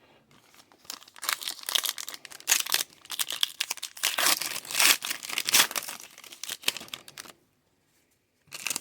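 A trading-card pack wrapper being torn open and crinkled in the hands, a dense crackling rustle that stops about seven seconds in.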